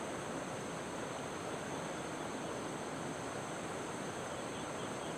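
Steady rush of a fast-flowing river running high after a flood, with a steady high-pitched tone over it.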